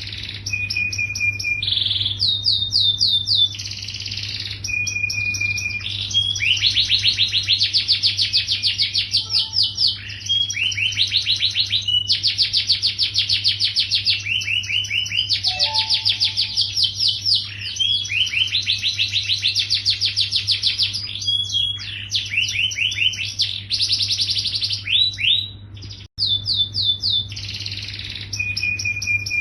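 Yellow domestic canary singing continuously: long runs of fast, rolling trills and repeated chirps, broken by a brief gap about three-quarters of the way through. A steady low hum runs underneath.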